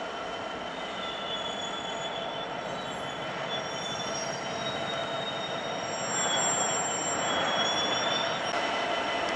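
Freightliner Class 66 diesel locomotive approaching, its EMD two-stroke V12 engine running with a steady drone, and thin high squealing from the wheels on the rails. It gets louder as it nears, with a step up about six seconds in.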